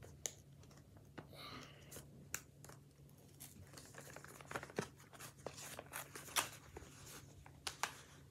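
Card-and-plastic packaging of a pop-it fidget toy being torn and pulled open by hand: scattered crinkling, scratching and sharp clicks, busiest and loudest in the second half.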